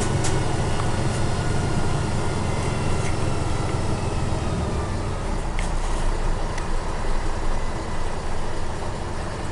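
Tatra 813 military truck's air-cooled V12 diesel running steadily under way, heard from inside the cab, with a few faint clicks from the cab.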